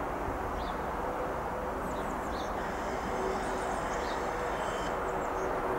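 Class 375 Electrostar electric multiple unit approaching slowly, a steady rumble with a faint hum, while small birds chirp now and then.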